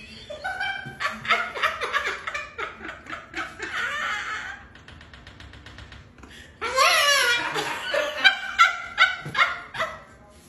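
Bouts of high-pitched laughter, in the first few seconds and again from about seven seconds in. In the quieter middle stretch there is a faint run of rapid ticks, fitting a cockatoo's beak tapping at the bottom of a door.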